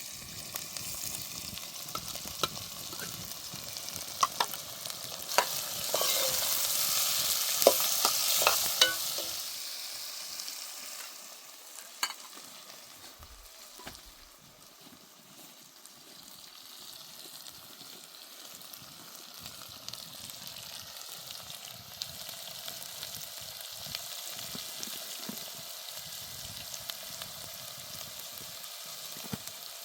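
Food sizzling in a frying pan, with scattered sharp clicks. The sizzle swells loudest for a few seconds about a fifth of the way in, fades, then settles into a steady hiss.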